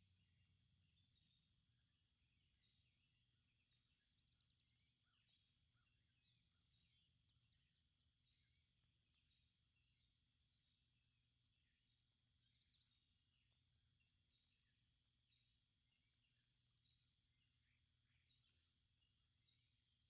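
Near silence: faint woodland ambience with scattered short chirps from small birds, and a brief flurry of higher calls about two-thirds of the way through.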